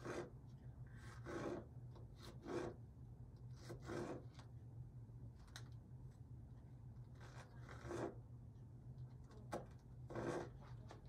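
Kitchen knife dicing a jalapeño pepper on a cutting board: irregular slicing and scraping strokes, about ten, over a steady low hum.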